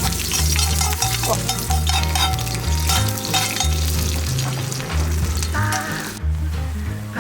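Food frying, a dense sizzle and crackle, over background music with a stepping bass line; the sizzling cuts off about six seconds in.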